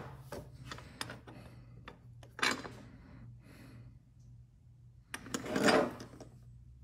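Scattered light metallic clicks and knocks as an aftermarket brake booster with its mounting bracket and threaded studs is handled and turned over by hand. A short wordless vocal sound comes near the end, and a low steady hum runs underneath.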